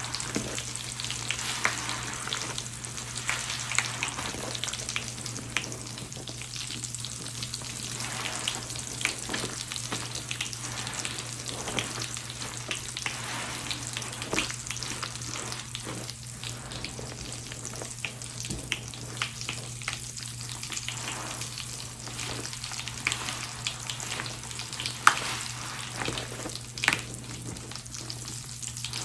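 A soapy sponge being squeezed and worked in thick suds, with wet squelching and a continuous fizzing crackle of foam, and a couple of louder squelches near the end.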